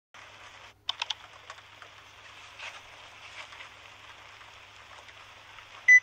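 Electric heater's control panel giving one short, loud electronic beep near the end, after a few sharp clicks about a second in over a steady hiss.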